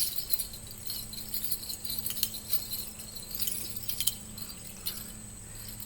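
Irregular light metallic jingling and tinkling, a few small clusters a second, over a steady high-pitched insect drone.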